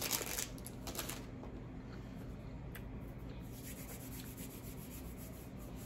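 Snack-bar wrapper crinkling briefly in the first second, then a quiet room with a low hum and a faint click near the middle.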